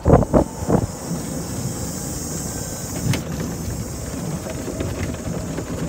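Golf cart driving over a rough dirt track: a steady rumble of the ride, with wind noise on the microphone.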